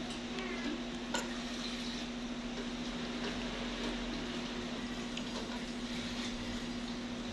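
Steady low hum and hiss, with a fork clicking once against the plate about a second in.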